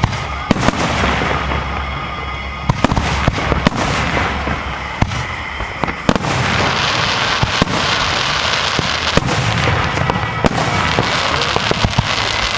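Aerial fireworks going off: sharp bangs about every second or so over a dense, continuous crackle of smaller bursts.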